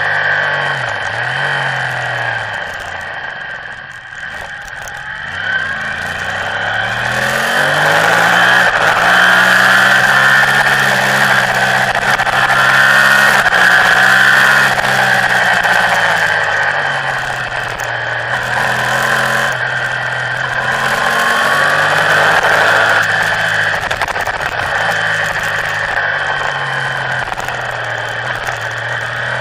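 Motorcycle engine heard on board at speed, its revs rising and falling as the rider accelerates, brakes and shifts gears. The revs dip lowest about four seconds in, then climb and hold high for several seconds before easing off again.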